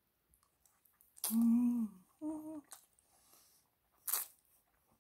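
Close-up mouth sounds of eating fettuccine with chopsticks. About a second in come two closed-mouth hums of enjoyment, a longer low one and then a shorter higher one. About four seconds in there is a short slurp as a strand of noodles is sucked in, with faint wet mouth clicks between.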